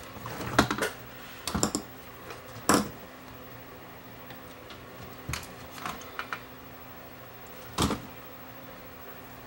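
Scattered clicks and knocks of a circuit board and pliers being handled on a workbench during desoldering, about half a dozen, the loudest about half a second in.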